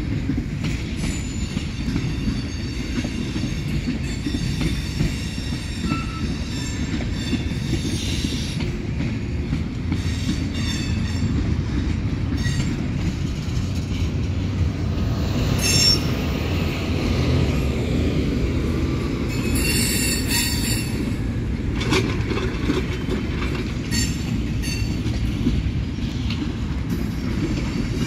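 Freight train cars rolling past with a steady rumble of wheels on rail. High-pitched wheel squeal comes and goes, strongest about twenty seconds in.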